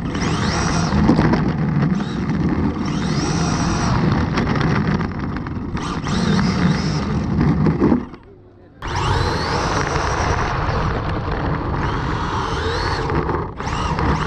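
Onboard sound of a Traxxas 1/16 rally RC car driving over rough asphalt. The electric motor's whine rises with each burst of throttle, over a loud rumble of gears and tyres. The sound drops away briefly just past the middle, then picks up again.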